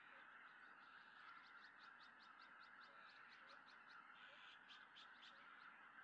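Faint, distant massed calling of a greater white-fronted goose flock, a steady chorus without a break, with a quick run of short high calls over it from about a second in until past the middle.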